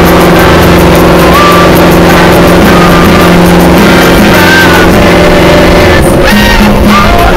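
Fishing boat's engine running steadily as a loud, even drone, which drops out about six seconds in.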